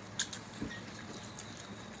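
Eating by hand: a few short, wet clicks and smacks from chewing and from fingers working rice and chicken curry on ceramic plates.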